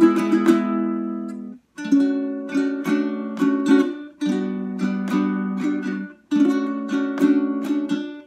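Kmise baritone ukulele with a solid spruce top, tuned DGBE with a re-entrant D, playing plucked chords that ring on. The chords come in short phrases, with a brief break about every two seconds.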